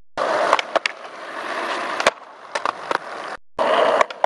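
Skateboard wheels rolling over concrete, broken by several sharp clacks of the board. The rolling cuts out briefly about three and a half seconds in, then returns loudly.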